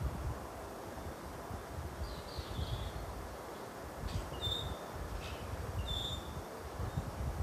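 Outdoor ambience: a low, uneven rumble with a few short, high bird chirps about two, four and a half and six seconds in.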